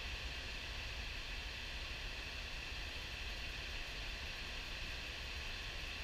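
Steady rushing of high-flow river water spilling over a diversion dam's gates and churning in the basin below, with a constant low rumble under it.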